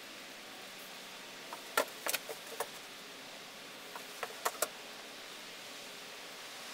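A few sharp light taps and clicks in two short clusters, about two seconds in and again about four and a half seconds in, over a steady hiss.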